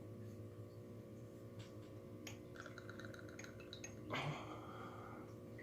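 Amaretto being poured from a bottle into a shot glass: a few faint clicks, a short run of rapid ticks, then a brief louder pour near the end, over a steady low hum.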